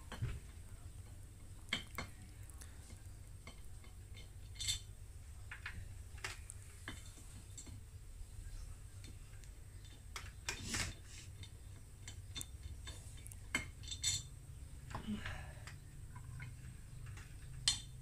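Screwdriver turning out the screws of a ceiling fan's motor housing: scattered light metal clicks and clinks at irregular moments, the sharpest about eleven seconds in, over a low steady hum.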